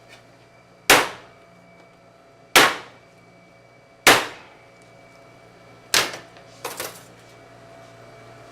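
A series of loud, sharp bangs, about one every one and a half seconds, each ringing out briefly; after the fourth comes a quicker, weaker double hit. A steady low hum runs underneath.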